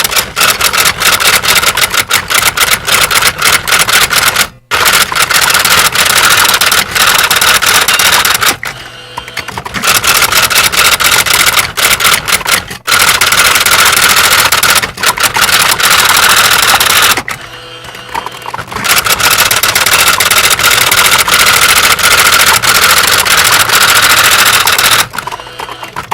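Typewriter keys struck in fast, continuous typing, a dense run of clicks broken by a few short pauses.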